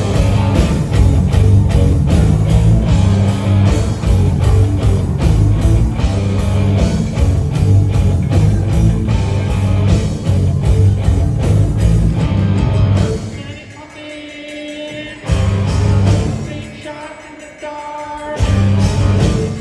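A rock band playing live, with heavy bass and drums and singing. About thirteen seconds in, the full band drops out to a few held notes, broken twice by short loud hits from the whole band.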